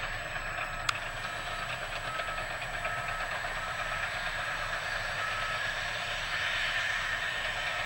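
Heavy earthmoving machinery running steadily with a low rumble and rattling hiss, while a faint reversing alarm beeps about twice a second and stops a little past halfway. A single sharp click about a second in.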